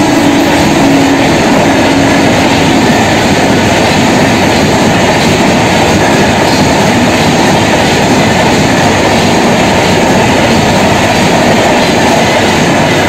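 Express passenger train passing close at speed, with a loud steady rush and rattle of coaches and wheels on the rails. The last of its horn fades out in the first second and a half.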